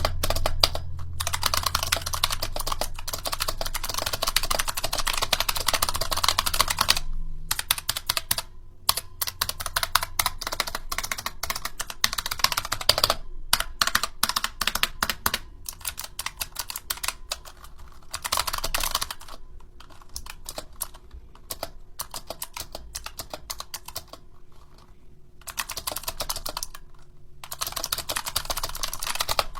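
Razer Huntsman Mini keyboard with Razer optical switches and doubleshot keycaps being typed on fast, as rapid runs of key clicks with a few brief pauses between the runs.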